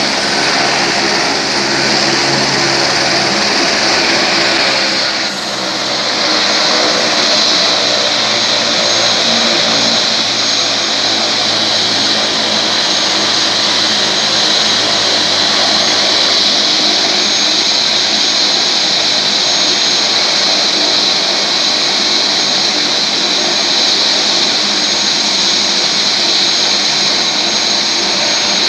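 Light military helicopter running on the ground with its main rotor turning, ready to lift off: a loud, steady high whine over a rushing noise, dipping briefly about five seconds in.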